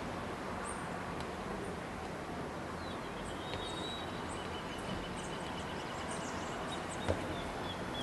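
Steady outdoor background noise with faint, short, high bird chirps scattered through it, and a single sharp click about seven seconds in.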